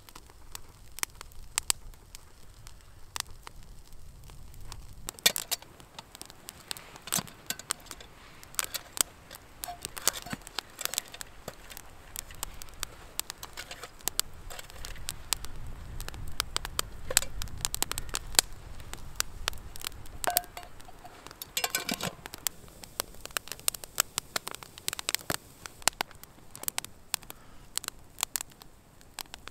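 Small campfire of dry twigs and branches crackling, with irregular sharp snaps and pops throughout.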